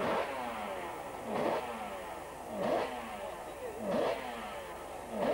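Racing motorcycle engines passing one after another, about one every second and a half, each swelling to a peak and falling away in pitch as it goes by.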